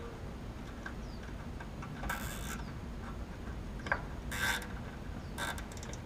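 A few short scrapes and a sharp click from hands working the wiring at the capacitor inside an air conditioner condenser's control panel, over a steady low background rumble.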